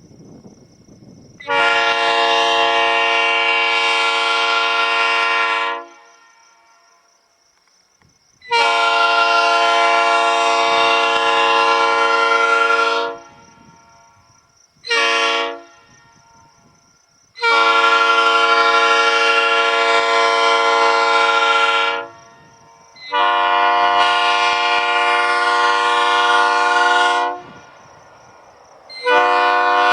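Nathan P3A three-chime air horn (Newcast bells 1 and 2 with an Oldcast 4A bell on a low-profile P3 manifold) sounding the traditional P3 chord raised a half step, a bright, cheery chord. It gives four long blasts of about four and a half seconds each, with one short toot between the second and third, and a fifth blast starts near the end.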